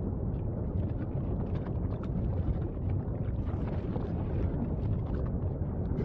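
Steady low rumble of an erupting volcano, mixed with wind buffeting the microphone and faint scattered crackles.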